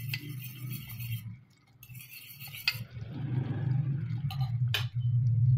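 A spoon clinking and scraping inside a glass, stirring cornflour and water into a slurry for thickening the gravy. It comes in two spells, followed by a few sharp clicks, over a steady low hum.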